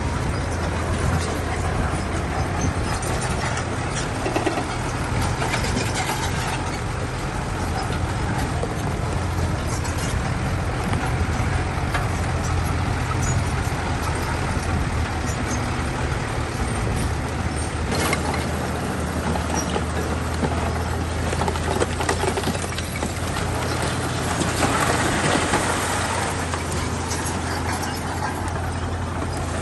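Bulldozer's diesel engine running steadily under load, with a few sharp metallic clanks and a stretch of rougher grinding noise near the end.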